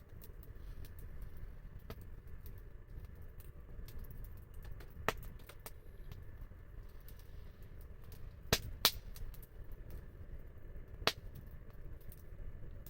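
Wood fire crackling, with scattered sharp pops over a steady low rumble. The loudest pops come about five seconds in, as a quick pair past halfway, and once more near the end.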